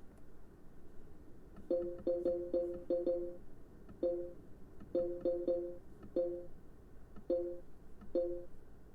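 A short two-note electronic beep, the same pitch every time, repeated about a dozen times at irregular intervals: a quick run of several beeps, then single beeps spaced out.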